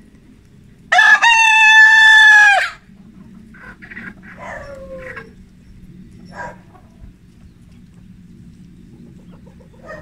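A rooster crows once about a second in: a loud, held call lasting nearly two seconds that drops off at the end. Fainter, shorter chicken calls follow, one sliding down in pitch.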